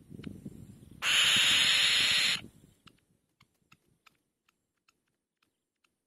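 Black-winged kite at the nest giving one harsh, hissing screech about a second in, lasting over a second and cutting off sharply, over low rustling from the birds in the nest. Faint ticks follow.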